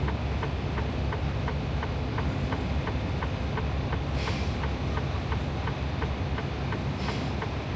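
Inside the cab of a Freightliner Cascadia semi truck backing slowly: the diesel engine runs low and steady while the blinker ticks about three times a second. Two short hisses of air come about four and seven seconds in.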